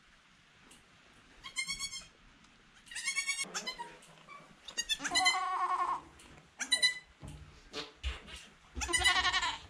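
Nigerian Dwarf goats bleating: five separate calls, some high-pitched, with the longest about halfway through.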